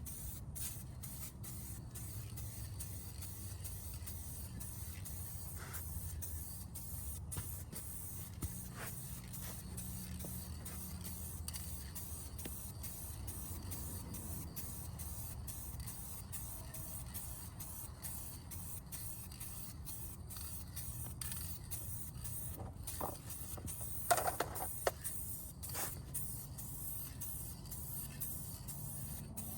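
Aerosol spray-paint can hissing in repeated short passes, the hiss cutting out briefly each time the nozzle is let go, with a few light clicks near the end.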